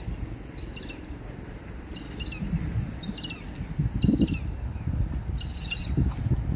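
A small bird chirping, short high calls that fall in pitch, repeated about once a second, over gusts of wind rumbling on the microphone.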